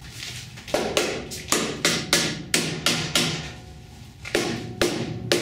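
Hammer blows on a car's steel chassis rail during a frame pull, about ten sharp strikes at uneven intervals, each with a short metallic ring.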